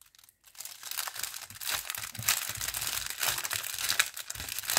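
Plastic packaging crinkling and rustling as small bags of diamond-painting rhinestones (drills) are handled: a dense run of crackles starting about half a second in.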